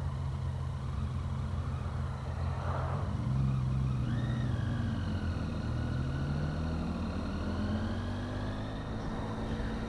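Vehicle engines in slow-moving traffic, heard from a motorcycle: a low, steady engine note, then from about three seconds in an engine note rising steadily for several seconds as traffic picks up speed.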